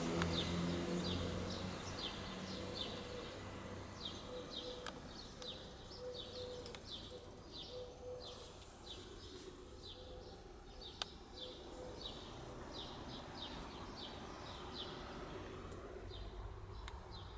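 A bird outdoors chirping over and over, short high chirps a few times a second in loose runs, against quiet background noise.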